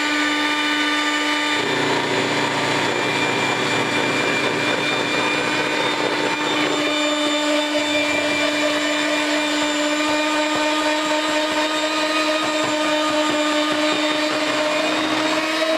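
Electric kitchen mixer running steadily at one speed, a constant motor whine, with an extra low churning rumble for a few seconds early on.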